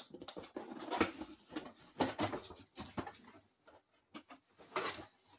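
Cardboard box being opened by hand: irregular scraping and rustling of cardboard and paper, with a few short louder scrapes and knocks.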